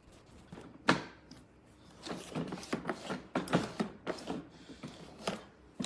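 Clicks and clacks of a plastic toy ride-on excavator being worked: one sharp knock about a second in, then a run of uneven clacks.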